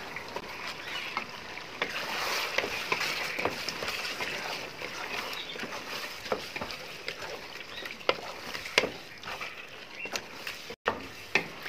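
Wooden spatula stirring chicken pieces and spices through hot oil in a pot: a wet, sizzling mixing sound with frequent small knocks and scrapes of the spatula against the pot.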